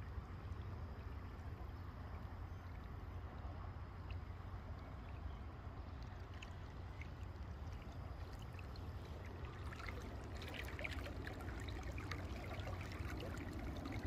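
River water flowing and lapping close to the microphone over a low steady rumble, with small splashes and trickling picking up about ten seconds in.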